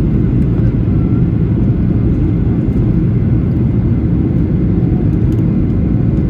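Steady low rumble of a WestJet jet airliner, its engine and airflow noise holding an even level.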